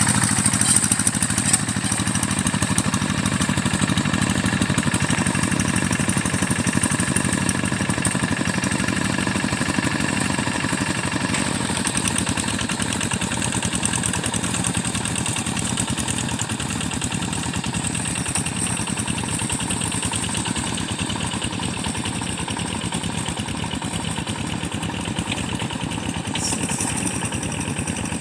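Rice-paddy tractor's diesel engine running steadily at working speed as it ploughs and levels the mud, with a fast, even chug, gradually getting a little fainter.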